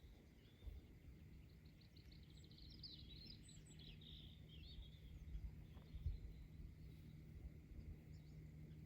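Faint birdsong: a small songbird's rapid trill running into a short warbling phrase, a few seconds in, over a low outdoor rumble with a few soft low thumps.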